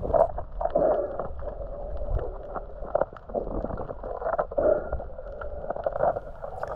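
Muffled underwater noise picked up by a camera in a waterproof housing on a reef: uneven swishing surges with scattered short clicks, dull and cut off above the low-mid range.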